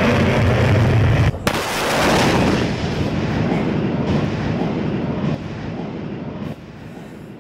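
Jet fighter takeoff sound effect: a loud jet roar that breaks off about a second in with a sharp blast, then a rushing roar that fades away in steps.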